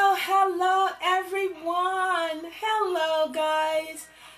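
A woman singing alone, with no instruments, in long held notes that slide smoothly between pitches, with short breaks for breath.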